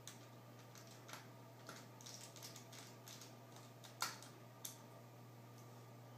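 Faint plastic clicks and snaps from an Acer Aspire One D255E netbook's screen bezel as it is pressed back into place around the panel, its clips catching one after another. The loudest snap comes about four seconds in, with a smaller one just after.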